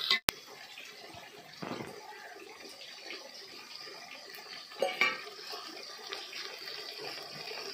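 Masala water poured from a steel bowl into a steel dish, with steel dishes knocking together about five seconds in, over the steady faint hiss of chicken frying in an aluminium pot on a wood fire.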